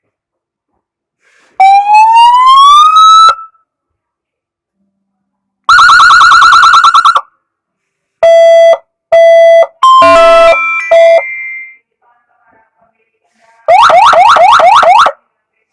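SA-920 wireless electronic police-escort siren run through its tones in short separate bursts with silences between: a rising wail that cuts off, a fast yelp, two short steady horn blasts, a quick run of stepped tones, and another fast yelp near the end.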